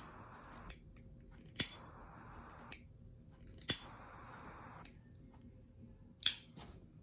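Eagle Torch butane jet-flame lighter being lit again and again. Each sharp ignition click is followed by about a second of the jet flame's hiss, and it goes out between lightings.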